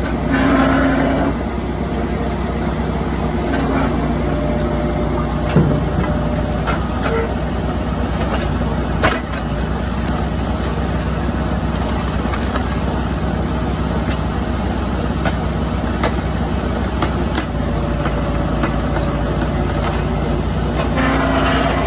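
Engine-driven hydraulic log splitter running steadily as a large round is split. The machine gets louder for about a second near the start and again near the end, and a few sharp cracks and knocks of splitting wood and falling pieces come through in between.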